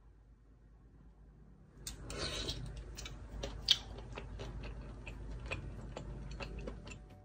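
A brief rustle, then a run of light, irregular clicks and taps, with one sharper click about three and a half seconds in.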